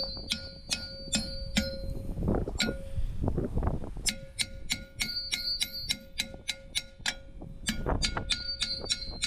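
Claw hammer striking a rusted, seized brake drum over and over, about three blows a second, each blow leaving the drum ringing. The blows pause for about two seconds about a quarter of the way in, then resume. The drum is stuck and is being hammered from the front to break it loose.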